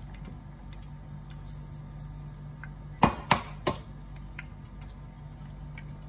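An egg frying in a hot pan with faint scattered ticking over a steady low hum. A little after halfway, three sharp taps come in quick succession: an eggshell being knocked against the pan rim to crack it.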